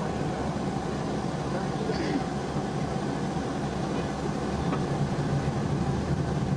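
Steady low drone of a tour coach's engine and road noise, heard from inside the moving coach.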